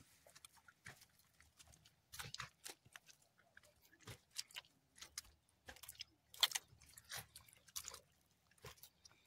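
Footsteps on damp, muddy soil: soft, irregular crunching steps, about two a second, the loudest a little past the middle.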